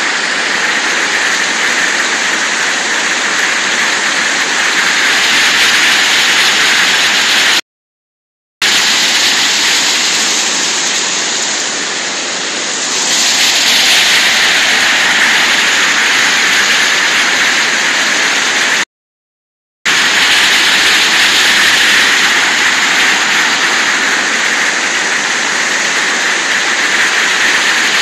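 Steady loud rush of river water pouring over a weir, cutting out completely twice for about a second.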